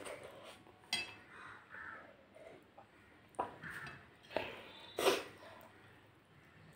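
Fingers mixing rice against a plate and chewing during a meal eaten by hand, with four sharp clicks of fingers or nails against the plate.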